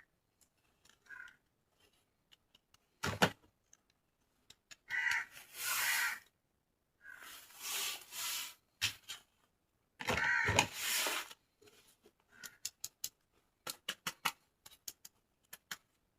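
Toy packaging being handled and unboxed: a single knock, three spells of plastic packaging rustling and crinkling, then a quick run of small plastic clicks.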